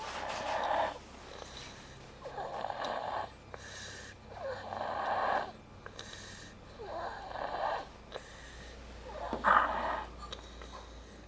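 A young girl snoring in her sleep, one snore about every two seconds, five in all.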